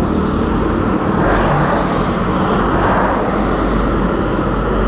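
Suzuki Tornado GS motorcycle engine running hard at speed during a full-throttle run, mixed with steady rushing wind noise.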